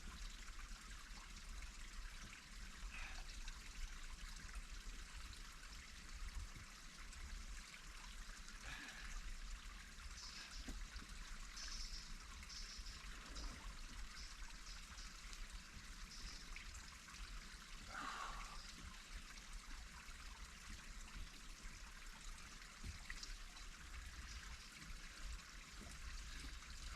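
Faint, steady trickle of running water, like a small stream, with a few brief high chirps about ten to thirteen seconds in.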